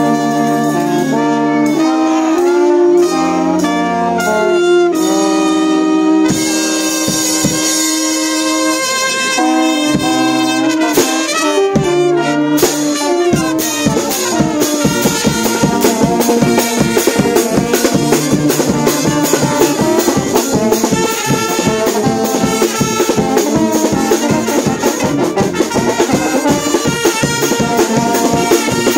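A live wind and brass band, with trumpets, saxophone, clarinet and a euphonium, playing a tune in long held notes. About halfway through, a steady quick drumbeat joins in.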